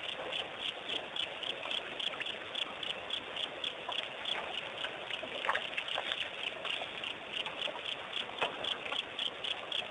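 Night insects chirping in a steady chorus that pulses about five times a second, with a couple of faint knocks partway through.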